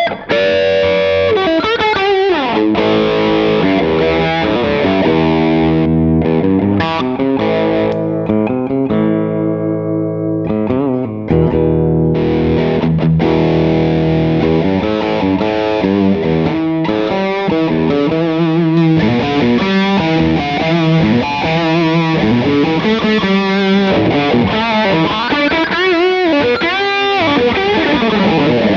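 Electric guitar played with overdrive pedals stacked in series, giving a saturated, distorted tone. It plays lead lines with bent and vibrato notes, with a passage of held chords in the middle.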